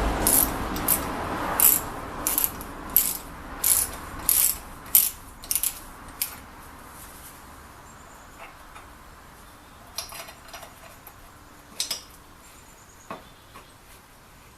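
Ratchet wrench clicking in a run of short strokes, about one or two a second, as a bolt is tightened; after that come a few scattered clicks of metal tools.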